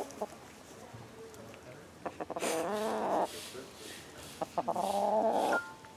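A domestic hen makes two drawn-out, clucking calls, each about a second long. The first comes about two seconds in and the second about four and a half seconds in, with a few sharp clicks just before each.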